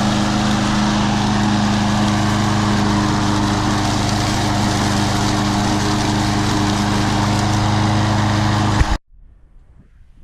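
Troy-Bilt TB230 push mower's Briggs & Stratton engine running steadily while mowing, a loud, even hum that cuts off abruptly about nine seconds in.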